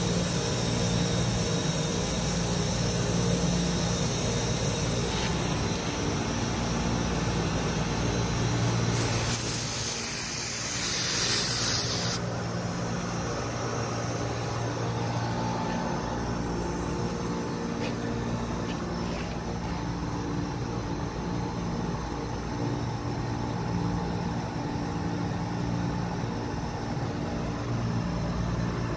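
Refrigerant gas hissing loudly for about three seconds at a hose fitting on a refrigerant recovery cylinder's valve, starting about nine seconds in and cutting off suddenly. A steady hum of running rooftop HVAC machinery continues underneath.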